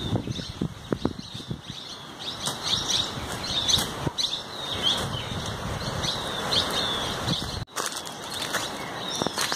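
Small birds chirping over and over in short, high, falling notes, with rustling and soft knocks from a backpack being handled in the first couple of seconds. The sound drops out for an instant about three-quarters of the way through.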